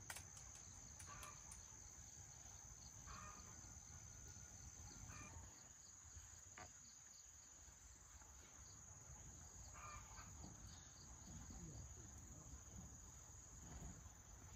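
Insects trilling faintly in one steady high-pitched drone, typical of crickets; otherwise near-quiet room tone.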